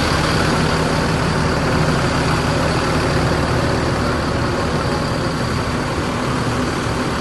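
A bus's diesel engine running steadily: an even, low drone with a constant rush of noise over it.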